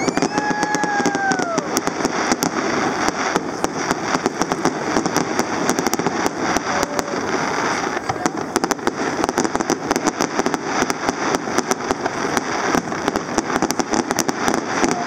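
Fireworks: a dense, continuous crackle of many rapid small pops from golden crackling shells bursting one after another, with louder bangs mixed in.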